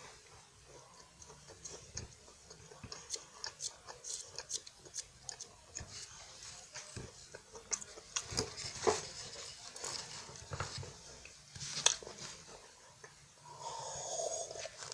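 Close-up chewing and crunching of a French Pie puff-pastry biscuit, with scattered small crackles and mouth clicks.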